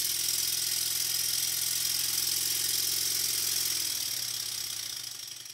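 Stuart Sun model steam engine running fast on compressed air at slightly raised pressure: a steady hum from its single-acting cylinders with a hiss of exhausting air. Near the end its pitch falls and the sound fades as the engine slows down.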